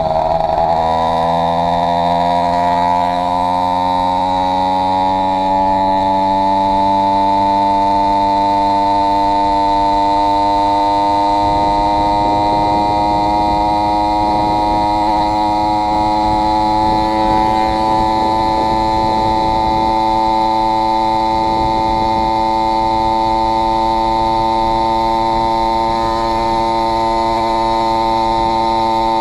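Two-stroke 80cc-class motorized-bicycle kit engine (AF80 crank, 49 mm cylinder) running under way at high revs, its pitch rising over the first few seconds and then holding steady. It was run with two base gaskets, which the owner says cost it power.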